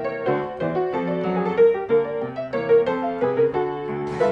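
Instrumental background music: a quick melody of short, struck notes.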